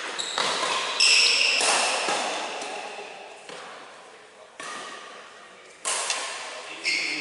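Badminton rally: rackets striking the shuttlecock about once a second, each hit sharp and ringing, with a long echo in the large hall.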